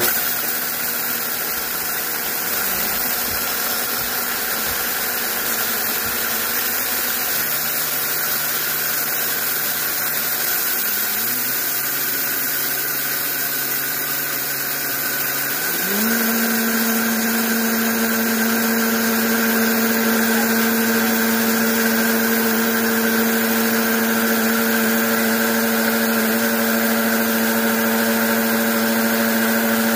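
Vitamix blender grinding dry kamut grain into flour, with a steady hiss of grain under the motor. The motor is started low and turned up in steps: its pitch steps up about 7 seconds in and again around 11 seconds, then rises to a higher, louder whine about 16 seconds in and holds there.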